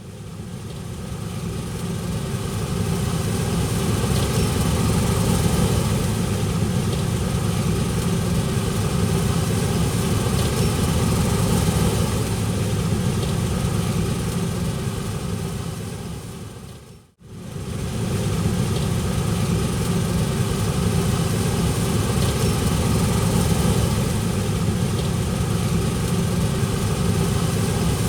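Farm machinery engine running steadily under load. The sound cuts out briefly about 17 seconds in and fades back in.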